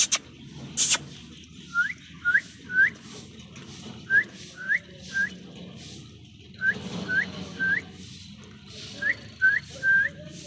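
Short, upward-sliding whistled chirps in sets of three, four sets in all. There are two sharp clicks in the first second.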